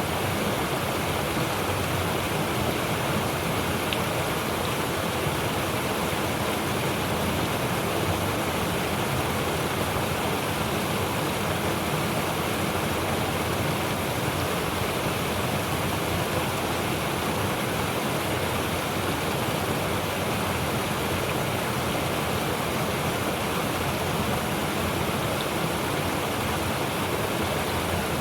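Mountain stream rushing steadily, a deep low rumble under the hiss of the water.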